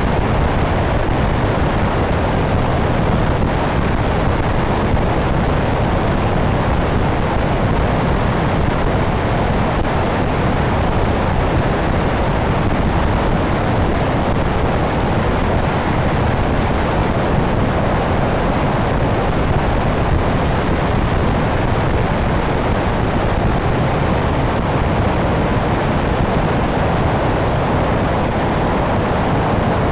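Steady rush of airflow buffeting a wing-mounted camera on an electric airplane in flight, a loud, even wind noise with no clear motor or propeller tone.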